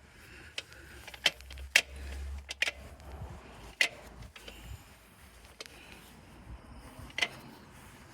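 A handful of sharp, separate clicks and knocks, about six spread over several seconds, with a brief low rumble about a second and a half in.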